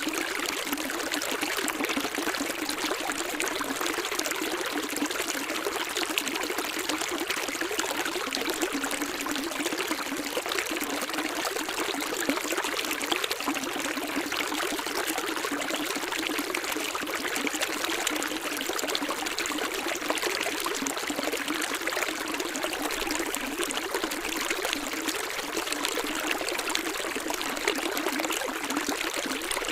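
Running water trickling and splashing steadily, as in a shallow stream, with no deep rumble.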